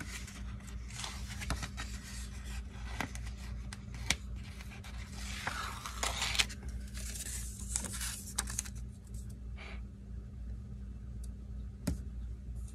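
Paper handling: a sticker book's page rustling and a strip of stickers peeled from its backing and pressed down along a paper planner page, with a few small taps and clicks.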